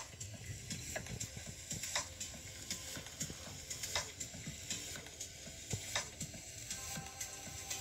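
Handling noise: faint irregular clicks and crackle over a soft hiss as the meteorite and the recording device are moved in the hand, with a few sharper clicks spaced about a second or two apart.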